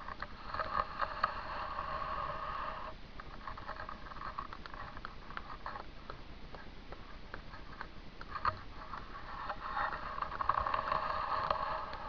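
Rustling handling noise and crunching from someone walking on snow with a handheld camera, with scattered light clicks. The louder rustle stops about three seconds in and comes back near the end.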